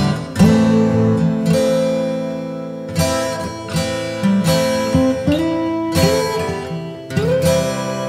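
Background music of acoustic guitar strumming chords, a new chord struck every second or so and left to ring.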